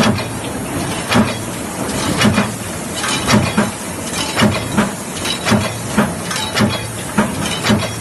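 Large mechanical stamping press running a die on metal strip stock, striking a heavy stroke about once a second. Between the strokes there are lighter metallic clanks over a steady hiss of machinery.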